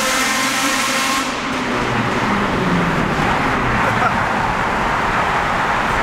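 Road and engine noise of cars driving through a tunnel, heard from inside a moving car.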